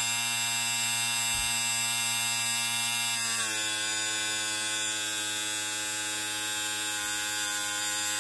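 Small electric vacuum pump of a home-built VacPen pickup pen running with a steady buzzing hum. It drops slightly in pitch about three and a half seconds in.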